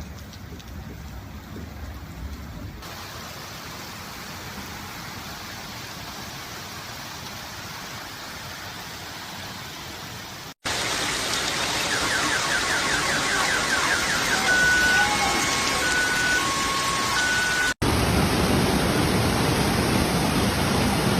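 Steady rushing noise of heavy rain and floodwater across several abruptly cut clips, much louder in the second half. In the middle clip an electronic alarm beeps repeatedly over the water noise.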